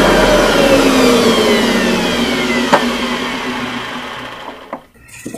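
Electric mixer grinder (mixie) running, grinding white bread slices into crumbs. Its motor whine falls steadily in pitch and fades, stopping shortly before the end, with a single sharp knock partway through.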